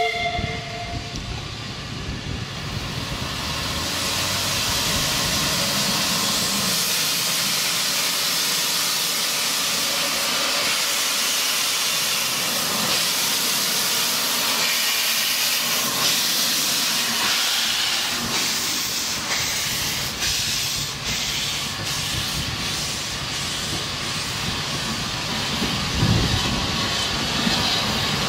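Narrow-gauge steam locomotive hissing steam: a steady, loud hiss that builds over the first few seconds and then holds, with a low thump near the end.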